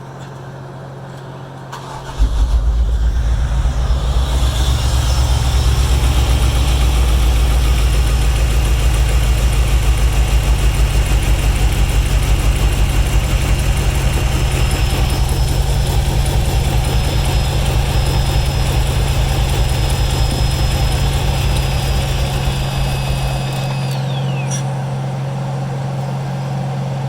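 1996 Impala's V8 engine starting about two seconds in and running steadily, then cutting out near the end. It starts but will not keep running: still no fuel pressure at the fuel rail Schrader valve after a fuel filter change.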